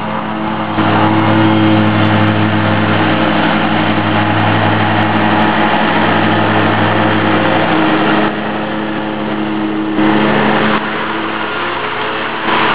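Hustler Super Z zero-turn riding mower's engine running steadily while mowing, its level stepping up and down abruptly a few times.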